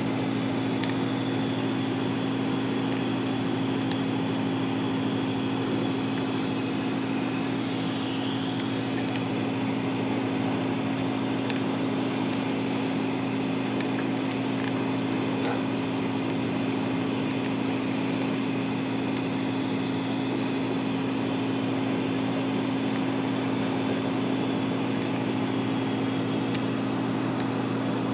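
Steady low electrical hum of reef-aquarium pumps, unchanging throughout, with a few faint ticks.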